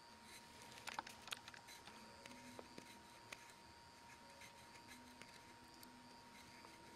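Near silence: room tone with a faint steady whine and a few soft ticks and scratches about a second in.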